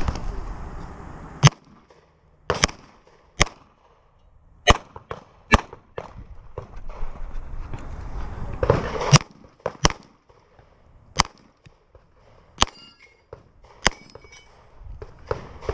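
Semi-automatic pistol firing about ten single shots in small irregular groups, pairs a second or less apart with pauses of one to three seconds between groups, each a sharp crack with a short echo.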